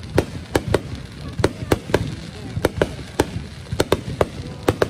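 An aerial fireworks display: a rapid, irregular string of a dozen or so sharp bangs from shells bursting, over a low rumble.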